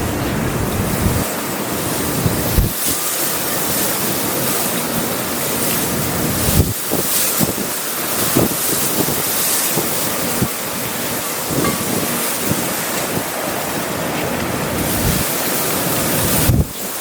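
Strong storm wind buffeting the microphone in gusts, a steady loud rushing with low thumps, dropping away briefly near the end.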